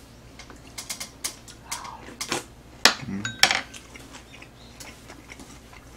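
Eating utensils clicking and tapping against a metal food tray and bowls, a scattered series of short sharp clicks, busiest in the first half and thinning out toward the end.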